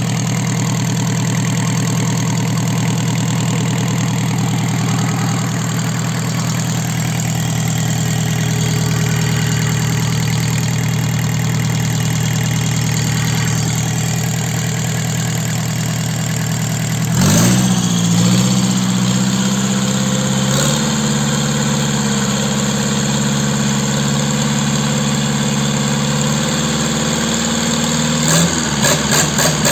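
Mitsubishi K4D four-cylinder diesel engine running on a test stand, idling steadily. About halfway through its speed jumps abruptly with a brief surge and settles at a higher, steady note. Near the end it begins a series of quick repeated surges.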